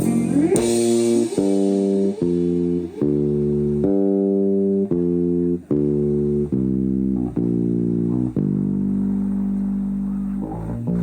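Live psychedelic rock band playing an instrumental passage: guitar and bass guitar move through a sequence of notes, one change about every half second, with a cymbal wash at the start and no vocals.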